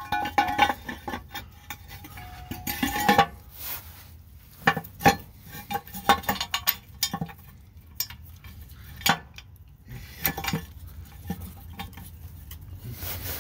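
Stamped sheet-metal torque converter cover clinking and scraping against the transmission as it is fitted by hand: an irregular run of sharp metallic clicks and knocks, a few with a brief ring.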